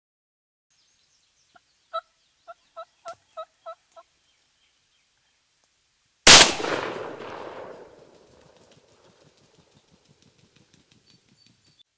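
Wild turkey calling, a run of about seven short, evenly spaced notes, then a single loud gunshot that echoes and dies away over a second or so. After the shot comes a faint rapid flapping as the shot turkey beats its wings on the ground.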